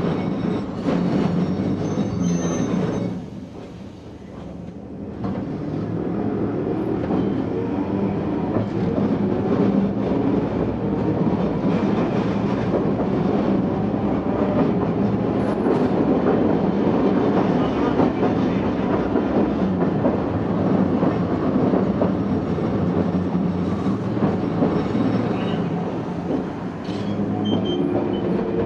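Tosaden Kotsu 700-series streetcar running on the rails, heard from on board: steady wheel and motor running noise. It drops away for a couple of seconds about three seconds in, then builds back up and runs on.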